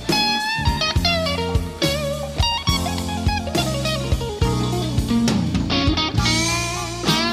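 Blues-style music led by electric guitar over bass and drums, its lead notes bending and wavering.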